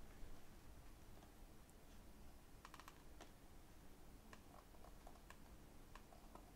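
Near silence: faint room tone with a few scattered light clicks.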